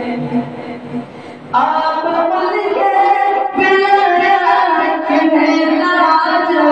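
A man singing an Urdu manqabat (devotional song in praise of a Sufi saint) into a microphone. He eases off briefly, then comes back in about a second and a half in with long held notes.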